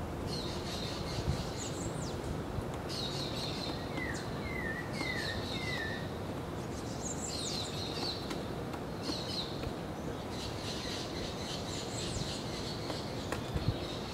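Birds calling: repeated high chirps throughout, with a run of four short falling notes about four seconds in, over a steady outdoor hiss.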